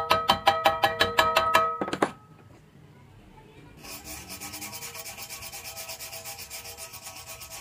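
A bare metal rod scraping back and forth along a stick-weld bead, a steady rasping rub that starts about four seconds in. Before it, a rapid, even clicking of about seven clicks a second with ringing tones stops about two seconds in.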